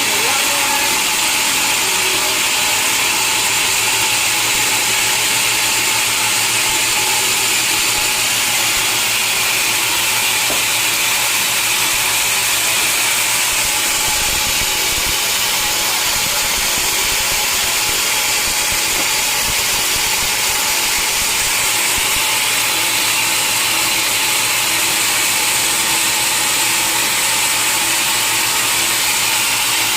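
Sawmill saw running steadily through a log, a continuous high, hissing machine noise without pauses.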